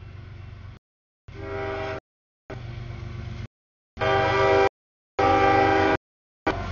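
Train horn sounding in about six short blasts, each under a second, cut off sharply with dead silence between. The blasts get louder about four seconds in.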